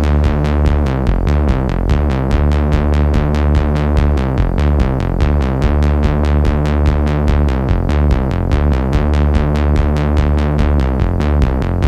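Electronic music: a synthesizer line with a changing bass over a steady drum-machine beat of about four hits a second.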